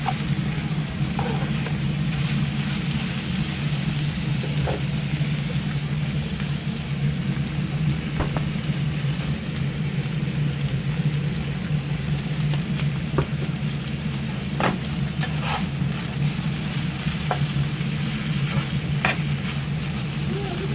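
Thin-sliced pork belly sizzling as it fries in a pan, over a steady low hum. Now and then a utensil clicks against the pan, about six times.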